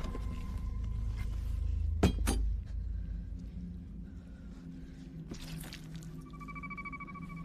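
Film soundtrack: a low rumbling drone with a single sharp crash about two seconds in, a lighter hit a few seconds later, and a steady ringing tone coming in near the end.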